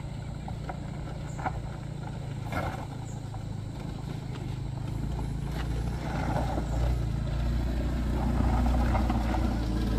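Vehicle engines running on a steep hill climb: a small pickup truck's engine hums low and steady, and a scooter climbs toward the microphone, the engine sound growing louder over the second half.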